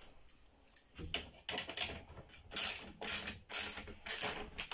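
Ratchet wrench driving a bolt: its pawl clicks in short runs about twice a second, starting about a second in.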